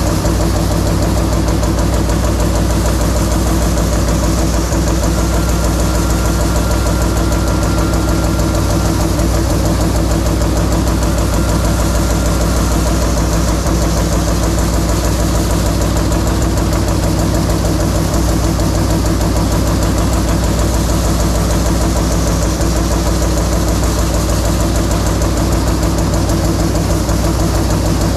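CNC punch press rapidly punching rows of slotted holes in a stainless steel sheet: a steady, fast stream of punch strokes over the machine's low hum.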